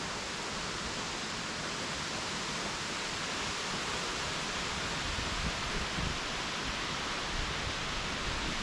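Waterfall rushing in a steady, even roar of falling water, with a few short low bumps about halfway through.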